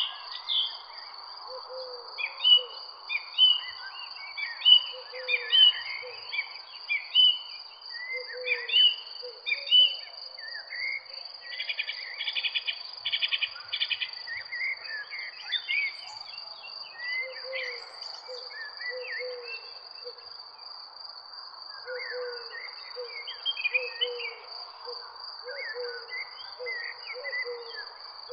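Garden birds chirping and singing in short phrases over a steady, high insect trill, with a fast bird trill about twelve seconds in and repeated low hooting calls, heaviest near the end.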